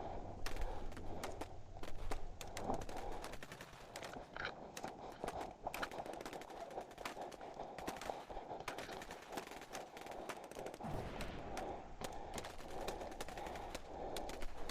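Airsoft guns firing: scattered sharp pops and short rapid bursts.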